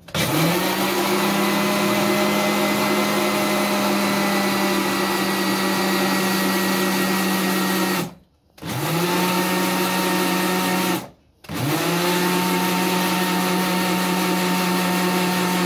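Electric countertop blender running, blending a liquid mix of oil, milk, cocoa and sugar into chocolate sauce. The motor runs in three spells, cutting out briefly about eight and eleven seconds in, and rises quickly in pitch as it spins up each time.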